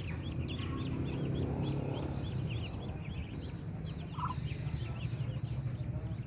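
A group of ducklings peeping: many short, high chirps overlapping quickly, over a steady low hum.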